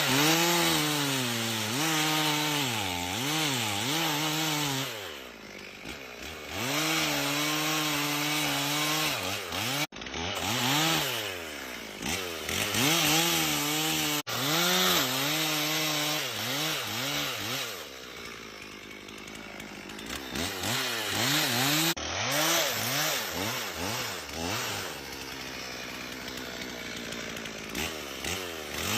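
Chainsaw cutting through timber, its engine pitch dipping and recovering over and over as the chain bogs in the wood and frees up, with a few abrupt breaks.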